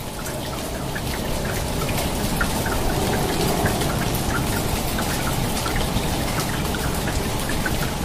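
Steady rain falling, with many separate drops ticking close by. It swells up over the first two seconds or so, then holds steady.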